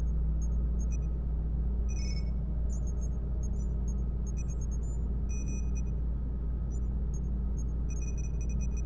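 Sci-fi space dock ambience track: a steady low drone with scattered short, high electronic beeps and chirps, like a control room.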